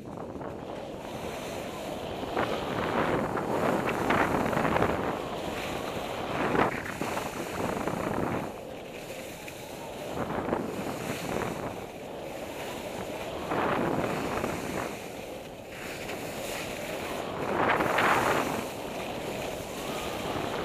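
Wind rushing over a helmet camera's microphone during a ski run, mixed with skis hissing and scraping over spring snow. It swells and fades every few seconds.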